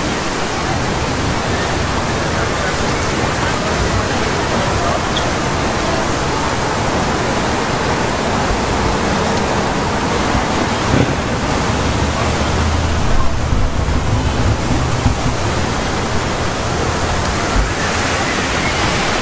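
Steady rushing and splashing of a two-tiered fountain's water jets. A low engine drone from passing traffic comes up about eleven seconds in and fades a few seconds later.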